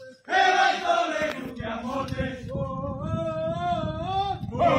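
A column of marching soldiers singing a marching chant together in loud male unison, the group coming in just after the start and a new line starting near the end.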